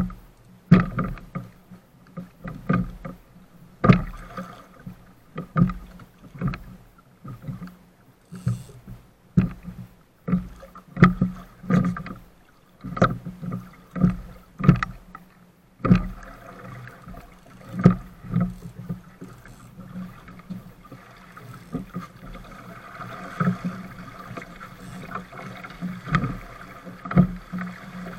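Small sailing dinghy's hull slapping into waves: irregular hard thuds about once a second, with water rushing along the hull. About halfway through the thuds thin out, leaving a steadier wash of water and wind.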